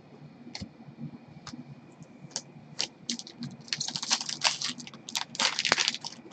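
Hockey trading cards handled by gloved hands: a few scattered light clicks, then a dense run of quick clicks and rustles from about three seconds in as cards are flipped through and set down.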